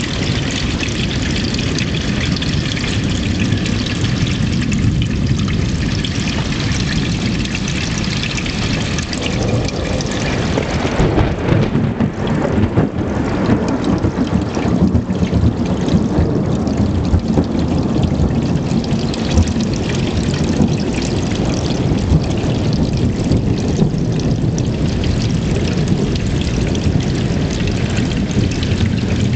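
Heavy rain falling in a thunderstorm, a steady loud rushing noise with a deep low rumble under it; the higher hiss thins out about ten seconds in.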